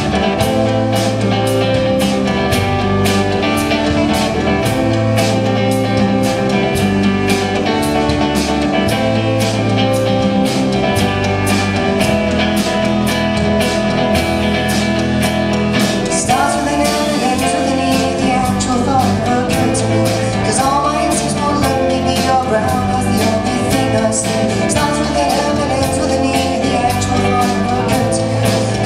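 Live rock band playing a song: drum kit keeping a steady beat under electric bass and electric guitar. A lead vocal comes in a little over halfway through.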